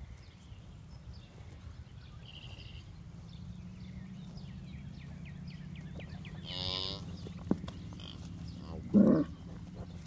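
Dexter cattle lowing: a long, low moo that holds for several seconds, then a short, loud low grunt about nine seconds in. Faint bird chirps in the background.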